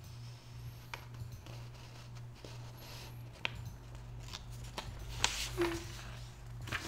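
Scattered single computer mouse clicks, a few seconds apart, over a steady low hum.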